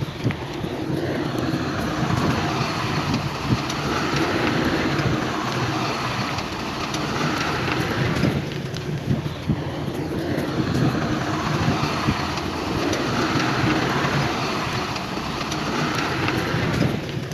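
Heavy diesel earthmoving machinery running steadily, with slow swells in its sound every few seconds.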